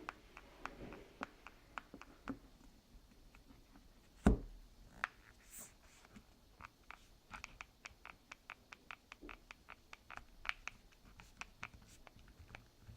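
Microsoft Lumia 950 smartphone's plastic housing creaking, heard as a string of small irregular clicks and ticks, with one louder knock about four seconds in.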